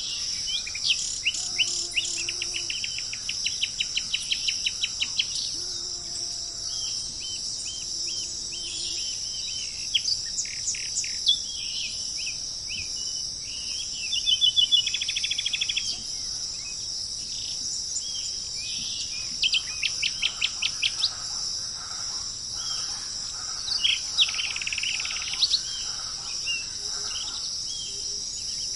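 Wild birds calling and singing over a steady, high-pitched chorus of insects such as crickets. The birds give several bursts of quick repeated notes and trills, the busiest about two, fourteen and twenty seconds in.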